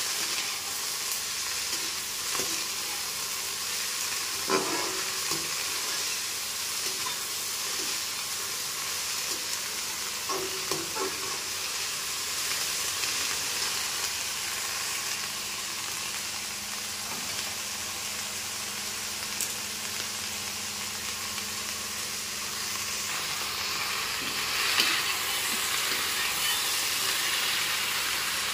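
Shredded cabbage with green peppers and potato sizzling steadily as it stir-fries in a metal kadhai. A few times the spatula scrapes and knocks against the pan.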